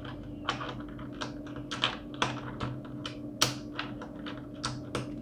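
Small plastic clicks and clacks of a resin keycap being pushed onto a mechanical keyboard's Cherry MX switch and pressed down, an irregular run of short clicks.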